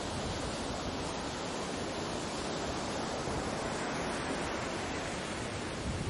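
Ocean surf washing continuously on a beach, a steady hiss with no separate wave crashes.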